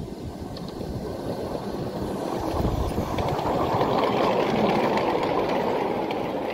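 Miniature steam locomotive and its wagons running past close by, the wheels clattering on the track, getting louder as the train goes by and loudest about four to five seconds in.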